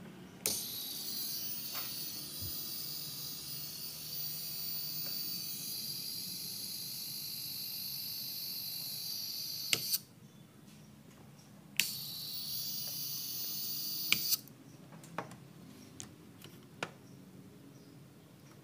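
High-pitched hiss from inside a Polytron u Slim CRT television's chassis while it is powered, the fault symptom of a set whose B+ supply voltage drops; where on the board it comes from is not yet found. The hiss cuts off with a click about ten seconds in, comes back with a click about two seconds later, and stops again with a click a couple of seconds after that; a few faint clicks follow.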